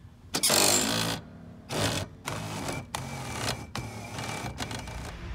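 Electric sofa bed's motor driving its lead-screw mechanism in uneven bursts, with the loudest burst about half a second in. It is the bed's drive as it was before repair, when the mechanism was slipping.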